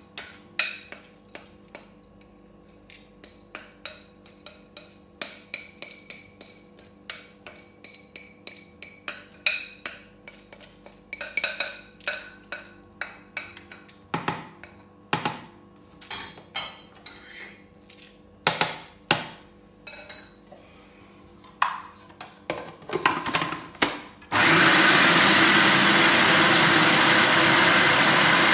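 Soaked urad dal being scraped into a plastic food-processor bowl, with many scattered clicks and taps of the utensil and grains against the plastic. About 24 seconds in, the food processor's motor switches on with a loud, steady whir as it grinds the dal into batter.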